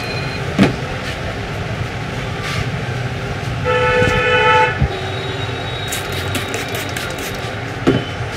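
Steady street background noise with a vehicle horn sounding once for about a second midway through. There are also two sharp knocks or slaps, one shortly after the start and one near the end.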